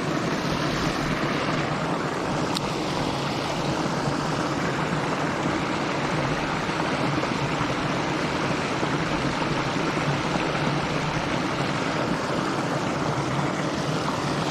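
Small stream flowing, a steady rushing of water over a riffle.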